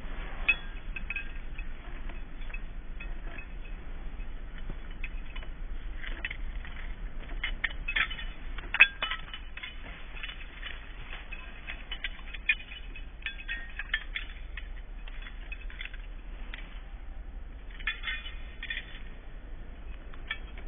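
Light metallic clinking and jingling in scattered short jingles, loudest about eight to nine seconds in and again near the end, over a low steady hum.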